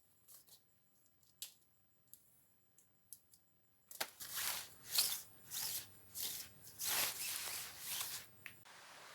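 A few faint clicks, then several seconds of irregular rustling and crinkling from something being handled. Near the end this stops and a steady hiss takes over.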